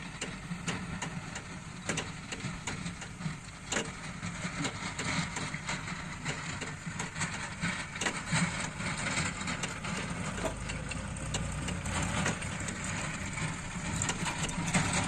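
Diesel engine of heavy machinery running steadily, with frequent sharp clicks and knocks over it.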